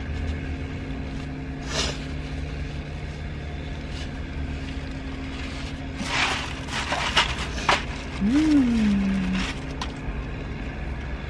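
Plastic bag of tortilla chips crinkling in bursts as a hand opens it and reaches in, over a steady low hum. Near the end a short pitched tone slides up, falls back and holds briefly.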